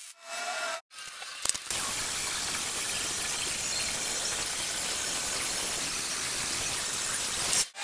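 Angle grinder grinding a steel square-tube frame: a steady, harsh hiss of the disc on metal that starts about two seconds in and stops abruptly near the end.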